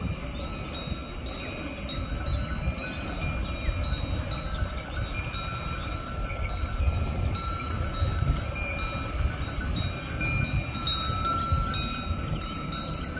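Bull-driven Persian wheel (rehat) at work. Chime-like ringing tones recur again and again over a steady low rumble of running water and turning gear.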